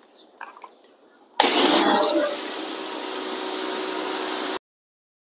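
Electric pressure washer spraying water through a 40-degree nozzle onto a car's body: a loud hiss of spray that starts suddenly about a second and a half in and is strongest for its first half second. It then runs steady over a faint hum from the motor and pump, and cuts off suddenly near the end.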